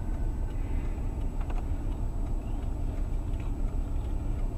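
Steady low rumble of a car heard from inside its cabin through the dashcam microphone, with no sudden sounds.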